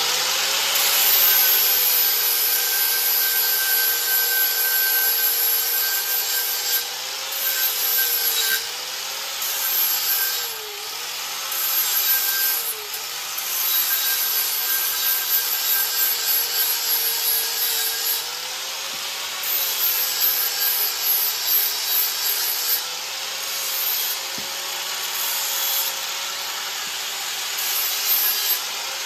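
Angle grinder with a flap disc grinding and smoothing a steel spacer ring. The motor's pitch sags and recovers several times as the disc is pressed into the work, mostly in the middle of the stretch.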